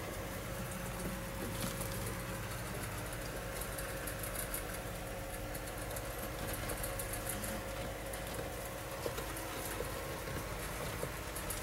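A Shaw's jird rustling in wood-shaving bedding and nibbling, heard as faint crackly ticks in short runs, over a steady low hum.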